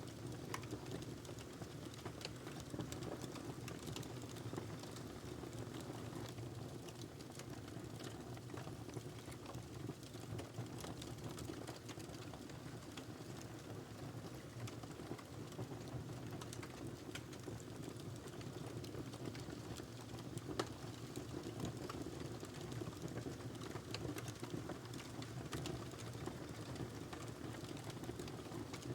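Wood fire burning in a fireplace: logs crackling with frequent irregular pops and snaps over a steady low rumble of flame.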